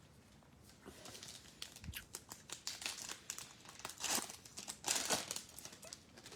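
Wrapper of a trading card pack being torn open and crinkled by hand, a run of crackling rustles that starts about a second in and is loudest near the end.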